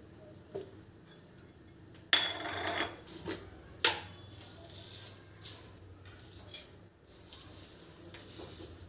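Kitchen handling noises: a plastic jar, its lids and a small steel bowl knocked and set down on the counter, with a short loud rattle about two seconds in, a sharp clink near four seconds and lighter knocks after.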